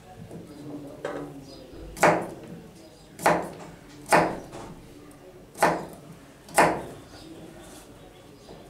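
Chef's knife slicing through carrot and striking a plastic cutting board: five sharp chops, roughly a second apart and unevenly spaced.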